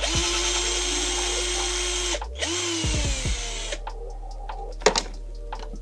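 Electric drill-driver spinning in two bursts, unscrewing screws from the engine casing: the first burst runs about two seconds at a steady pitch, and the second, shorter one winds down in pitch. A sharp click follows about five seconds in.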